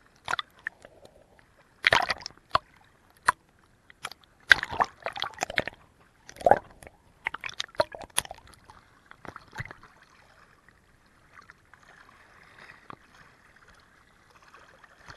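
Water splashing and slapping around a camera held at the lake surface: loud, irregular splashes from a swimmer kicking close by for the first ten seconds or so, then gentler lapping and sloshing.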